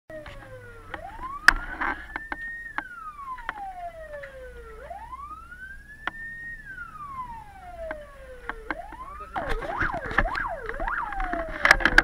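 Emergency vehicle siren heard from inside the van cabin: slow wails rising and falling, then about nine seconds in a fast yelp for a couple of seconds before it winds back down. Sharp clicks and knocks sound over a low engine rumble.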